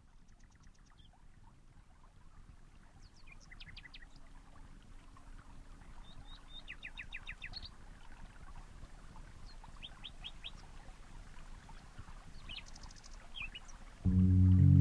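Small birds chirping in short quick runs of three to five notes over faint outdoor background noise. Loud music starts abruptly near the end.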